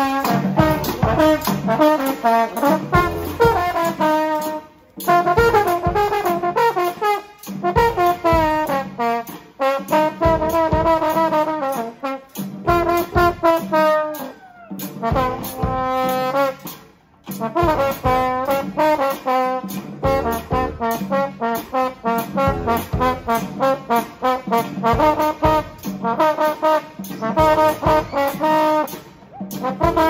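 Brass street band playing a tune, with a trombone loudest and close at hand. The playing dips briefly between phrases a few times.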